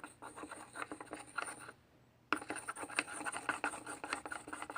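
A pencil stirring a glue and shaving-cream slime mixture in a bowl, rapid scratchy scraping strokes in two bouts with a short pause about two seconds in.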